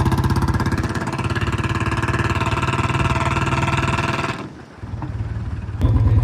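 Royal Enfield Bullet single-cylinder engine idling with an even, rapid beat, just after a workshop fix of its engine noise. The sound falls away abruptly about four and a half seconds in, then returns as loud near the end.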